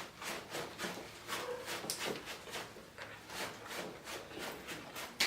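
A person eating: a run of soft, irregular mouth smacks and chewing clicks, several a second, with a sharper click near the end.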